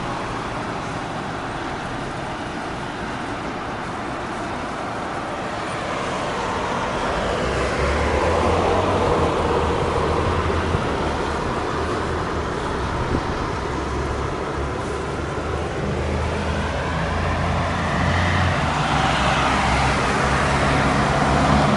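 Road traffic: passing cars, their tyre and engine noise swelling and fading as they go by, with a low engine drone in the second half.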